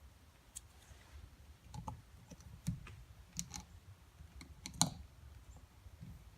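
Scattered light clicks and small knocks from a seal-installer tool and hydraulic cylinder parts being handled while an inner seal is folded into place. The loudest click comes near the end.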